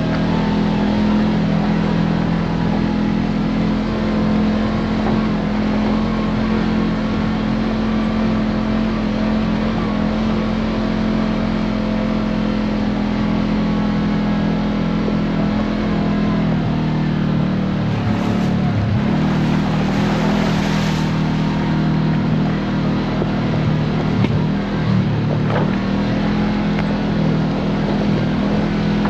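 Kawasaki Teryx KRX4 1000 side-by-side's parallel-twin engine running steadily on a trail, holding an even pitch. About eighteen seconds in there is a brief rush of noise for a few seconds.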